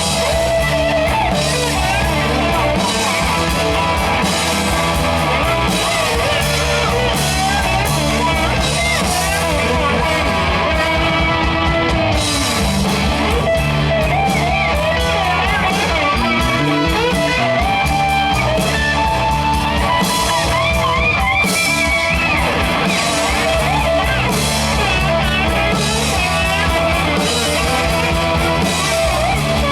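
A rock band playing live, guitar over bass and drums, with some singing.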